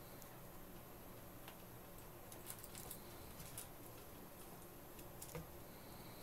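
Two pet ferrets scuffling and scampering on bathroom carpet: faint, irregular ticks and light pattering, about half a dozen scattered clicks over a low hiss.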